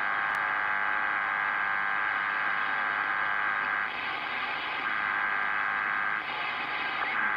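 CB radio receiver giving out a steady hiss of static, held within a narrow band of the radio's audio, with two short dips in level partway through.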